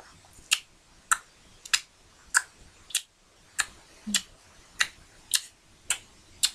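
Ticking-clock sound effect marking thinking time: sharp, even ticks at a steady pace of just under two a second.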